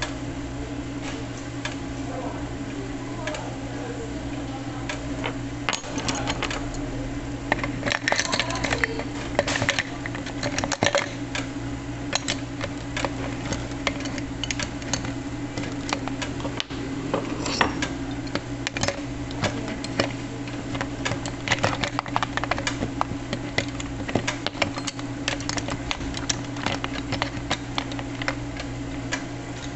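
Gural electric cheese slicer running, its motor humming steadily while the circular blade turns against the mounted sharpening stones. Irregular rapid clicking and scraping rides on the hum and comes louder in spells.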